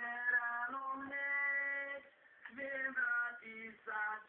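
A voice singing long held notes, with a short break about two seconds in.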